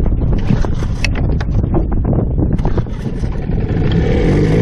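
Wind buffeting the microphone, then a small tiller-steered outboard motor running with a steady drone that comes up clearly about three and a half seconds in.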